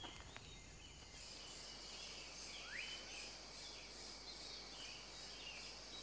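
Faint tropical rainforest ambience: a steady high insect drone that sets in about a second in, with scattered bird chirps and one rising whistled bird call near the middle.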